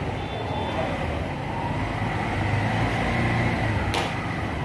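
Steady low rumble of a running vehicle engine, with a single sharp click about four seconds in.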